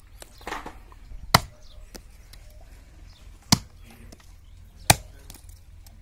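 Short-handled hatchet chopping into green wooden sticks held upright on a wooden chopping block: three sharp strikes a second or two apart, with a few lighter knocks between.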